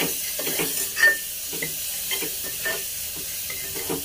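Onions, tomatoes and spices sizzling in hot oil in a pressure cooker while a steel ladle stirs, scraping against the pot in repeated strokes, with a sharper clink about a second in.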